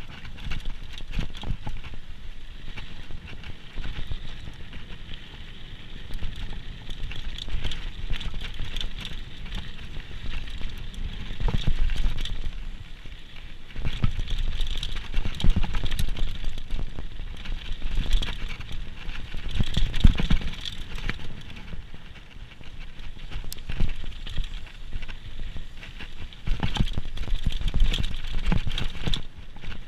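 Downhill mountain bike rattling and clattering continuously over rough trail, heard through an action camera riding along, with heavy low thumps from bumps and drops, the biggest about twelve and twenty seconds in.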